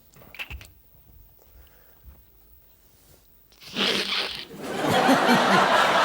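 A man makes a short hissing vocal sound effect into the microphone a little before the end. The studio audience then breaks into laughter and applause.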